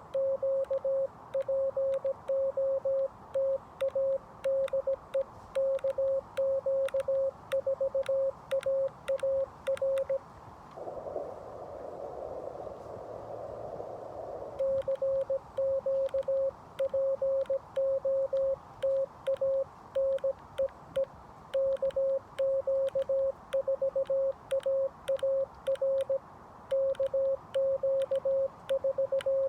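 Morse code at about 17 words a minute: a single steady tone keyed on and off in dots and dashes, the CW sidetone of a Xiegu G90 HF transceiver, with faint sharp clicks from the paddle keying it. About a third of the way in, the keying stops for some four seconds and receiver hiss is heard before the sending resumes.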